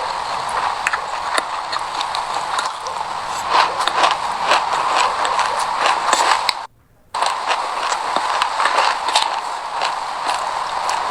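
Close-miked chewing of a mouthful of raw sesame seeds: a dense run of small, crisp crackling crunches. The sound cuts out for about half a second roughly two-thirds of the way through, then resumes.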